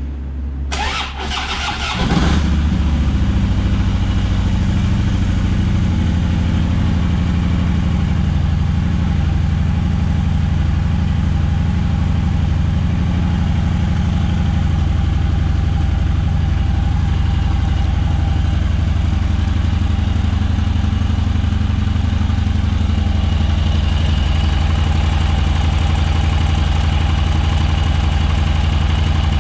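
2013 Harley-Davidson FLHTP's air-cooled V-twin cranking on the electric starter, catching about two seconds in and settling into a steady idle.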